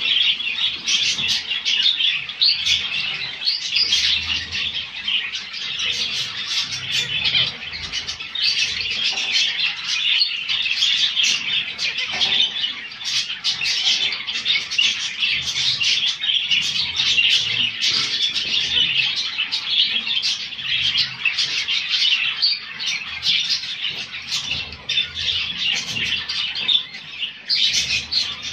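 A group of caged zebra finches calling continuously: a dense, overlapping chatter of short, rapid calls.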